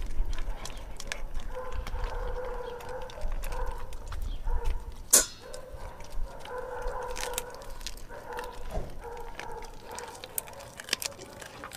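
Dog chewing and crunching raw food: irregular wet smacks and clicks of the jaws, with one sharper click about five seconds in. A faint hum comes and goes in the background.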